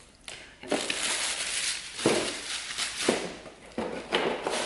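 Plastic packaging rustling and crinkling, with several light knocks as the spare parts of a robot vacuum are handled.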